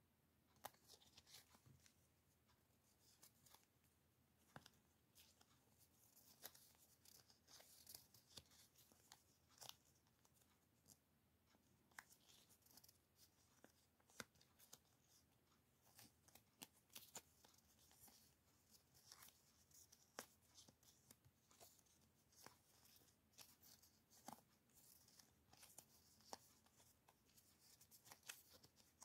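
Faint crinkly rustling and many small clicks of glossy and holographic paper stickers being peeled from their backing and shuffled between the fingers.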